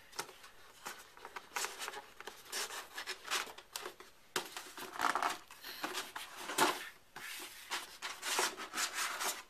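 Cardboard packaging of a Logitech diNovo Mini box being handled and unpacked: irregular rustling, crinkling and scraping as the box and its inner tray are worked open.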